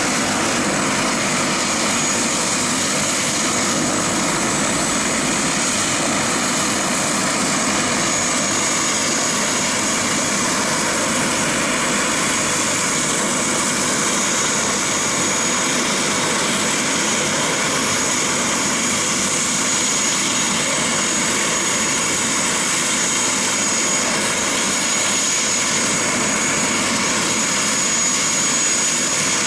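Aircraft turbine engine running steadily, a continuous rushing sound with a steady high-pitched whine on top.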